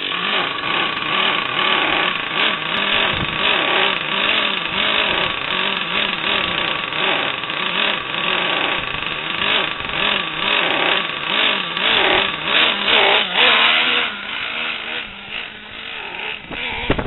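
Small engine running and revving up and down in quick, repeated swells, climbing to a higher rev about three quarters of the way through.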